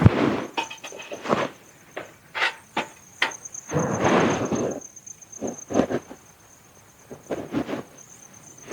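Irregular knocks, clatters and short rustling bursts of handling noise, with a steady high insect trill throughout.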